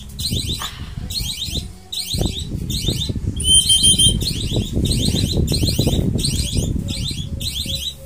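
A high-pitched pulsing buzz repeating about three times every two seconds, over close rustling and handling noise as a tiny zebra dove fledgling is hand-fed.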